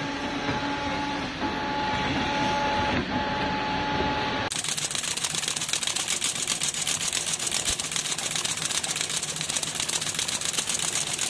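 Brush-tufting machine stapling bristle tufts into a plastic brush block: a rapid, even clatter of clicks that starts suddenly about four seconds in. Before it, a steady machine hum with a held tone and a few knocks.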